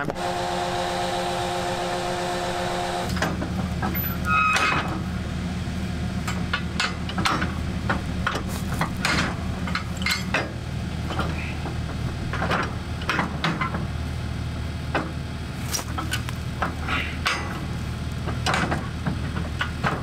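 Metal clanks and clicks of a head cart's tongue and safety chain being hitched to a pickup's receiver hitch, a scatter of short knocks over a steady engine hum. For the first three seconds a steady multi-note tone is held, then stops.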